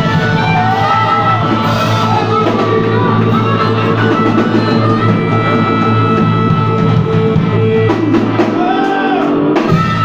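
Live rock band playing: electric guitar strummed over a drum kit, with a steady low held note that drops out about eight and a half seconds in as the song reaches its last bars.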